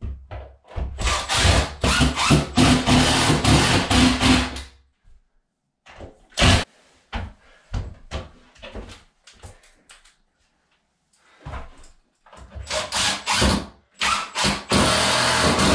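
Cordless driver running in two long bursts, driving screws through a wall cabinet into the wall, the second near the top drawing the cabinet in toward plumb. Between them comes a sharp knock as the tool is set down, then a few lighter knocks.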